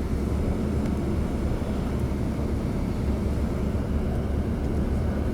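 Steady low rumble of a moving tour bus, engine and road noise heard from inside the cabin.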